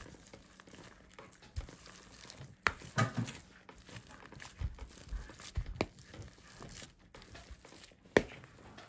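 Boiled potatoes being mashed with a plastic potato masher in a plastic bowl: irregular soft squelching and crumbling, with a few sharper knocks of the masher against the bowl.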